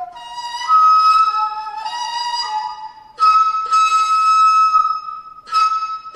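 Daegeum, the large Korean bamboo transverse flute, playing a solo line. It moves between lower notes and a high note, then holds the high note long, with two short breaks where the note is attacked again.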